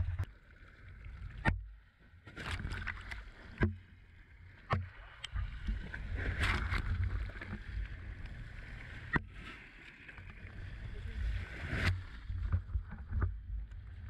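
Wind on the microphone over a boat's low steady rumble, broken by several sharp knocks and bursts of splashing water as a large grouper is hauled from the sea onto the deck.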